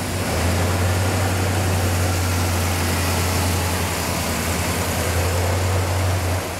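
1969 Pontiac GTO Judge's 400 cubic-inch V8 idling steadily with its low, even exhaust note. It falls a little quieter near the end.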